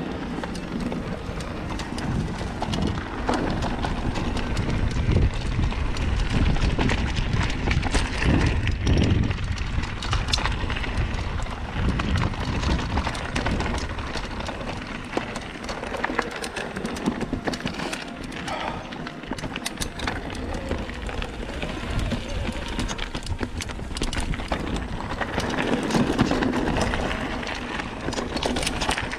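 Mountain bike riding down a rough trail: tyres rolling over dirt and stones and the bike rattling and clicking over bumps. A heavy low rumble runs under it, strongest in the first third and again near the end.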